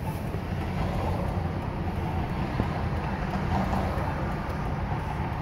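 Steady low rumble of car and traffic noise heard from inside a car's cabin.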